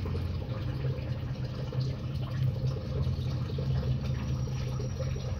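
A steady low hum with a faint even noise above it.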